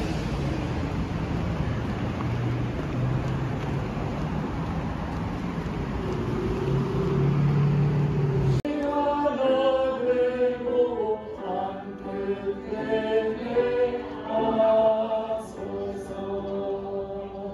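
Steady outdoor street noise with a low hum, like traffic along a city pavement. About halfway through it cuts abruptly to singing voices with music.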